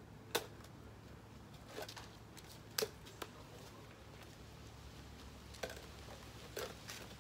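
About six light clicks and taps, scattered and irregular, as paper balls on strings land in and knock against the cut-off plastic water-bottle cups of homemade kendama toys. The loudest comes about a third of a second in. A faint steady low hum runs underneath.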